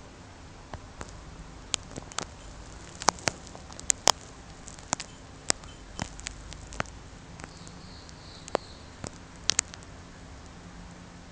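Bouncing on something fitted with a bell: irregular sharp clicks and light knocks, about eighteen of them, some in quick pairs, with a brief faint high ring a little after the middle.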